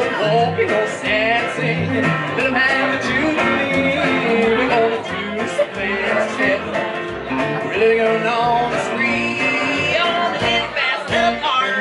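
Live country band playing an instrumental passage: electric guitar, plucked upright double bass keeping a steady beat, and acoustic guitar.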